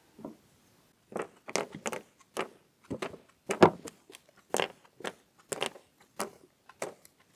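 Small plastic spring clamps being unclipped from tire molds and tossed onto a wooden table: a string of about a dozen sharp, irregular plastic clacks, the loudest about three and a half seconds in.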